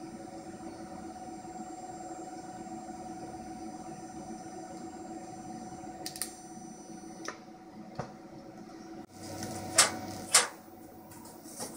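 TIG welder's arc on stainless steel: a steady hiss with a faint high whine over a low hum, the whine stopping about seven seconds in as the weld ends. A few clicks follow, then two sharp knocks near the end.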